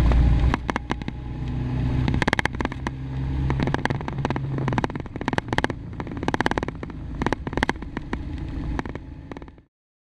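Motorcycle-and-sidecar rig on the move, heard from inside the enclosed sidecar: steady engine and road noise with many sharp rattles and knocks from the sidecar body. The sound cuts off suddenly near the end.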